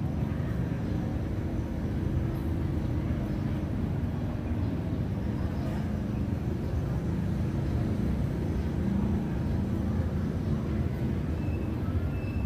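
Steady low outdoor rumble with no distinct events, of the kind made by distant city traffic.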